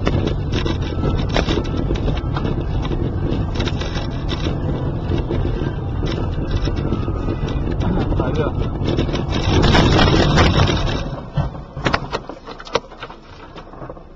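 Road and engine noise heard from inside a car driving on a rough, dusty road, swelling to a loud rush about ten seconds in, then falling away with a few sharp knocks.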